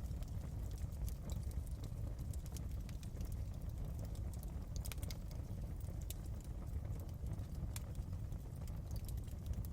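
Wood fire burning in a fireplace: a steady low rumble with irregular sharp crackles and pops.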